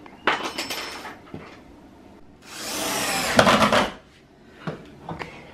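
Hand tools clatter briefly, then a cordless drill runs for about a second and a half, rising in pitch as it spins up, before stopping about four seconds in.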